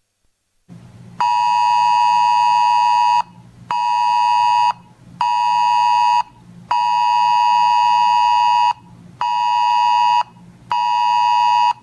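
Weather radio alert tone: a steady beep near 1 kHz sounding in six pulses, some about two seconds long and some about one second, with short gaps between them. It signals an incoming National Weather Service alert.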